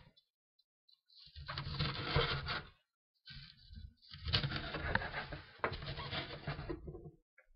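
Kitchen knife slicing a scored green onion into fine pieces on a plastic cutting board, the blade tapping the board in quick repeated strokes. Two runs of cutting: a short one starting just over a second in, and a longer one of about three seconds starting around four seconds in.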